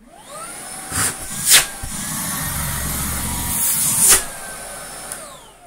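Numatic NBV190NX battery-powered Henry vacuum cleaner switched on: the motor spins up with a rising whine, runs steadily, then is switched off and winds down with a falling whine near the end. A few sharp knocks can be heard as the machine is handled.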